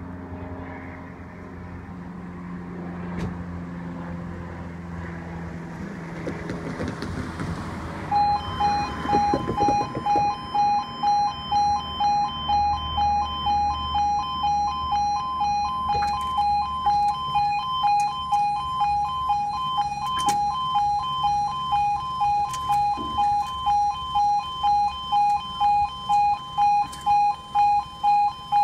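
Road traffic at first. About eight seconds in, a level crossing's warning alarm starts: a loud two-tone alarm pulsing about twice a second, the signal that the barriers are lowering for a train. It cuts off suddenly near the end, with the barriers down.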